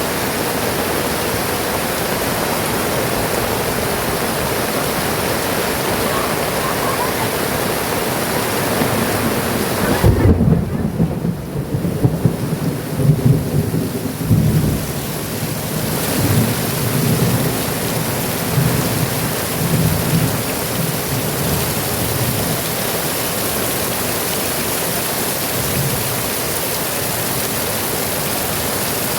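Heavy rain pouring steadily. About ten seconds in, a thunderclap breaks and rumbles for about five seconds before the rain alone carries on.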